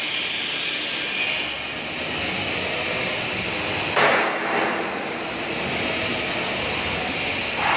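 Steady, loud machinery roar, with a brief louder burst about four seconds in and another near the end.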